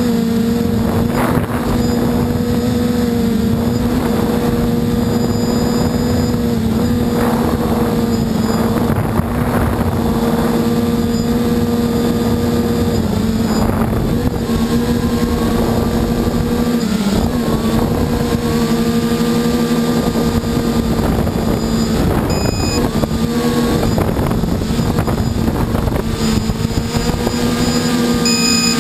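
Multicopter's electric motors and propellers humming steadily, heard from the camera mounted on the craft; the pitch dips briefly a few times as the throttle changes.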